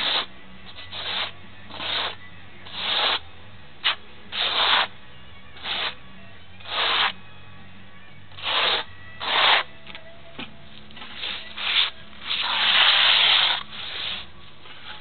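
Steel notched trowel scraping and combing thinset mortar on a concrete slab in short repeated strokes, about one a second, with one longer stroke near the end.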